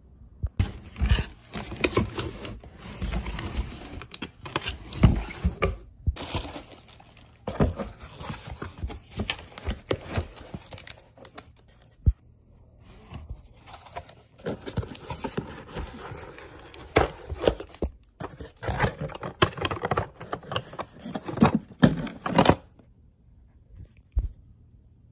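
Packaging being handled and torn open: crinkling, scraping and ripping as a taped cardboard shipping box is opened, in an irregular run of rustles and rips that stops a few seconds before the end.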